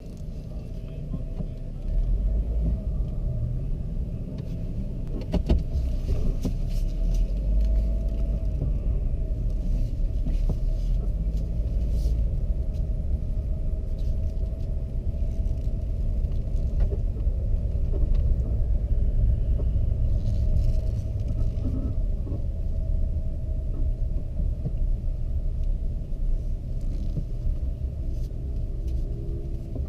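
A 2010 Dodge Charger SXT AWD's engine and drivetrain running at low speed, heard from inside the cabin as a steady low rumble. It steps up in loudness about two seconds in, with a few faint clicks over it.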